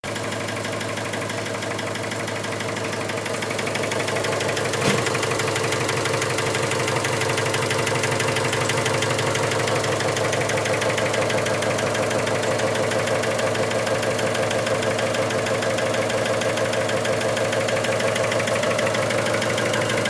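Car engine idling with a rapid, regular knock, getting a little louder about four seconds in, with one sharp click near five seconds. The owner takes the knock for a worn main bearing shell.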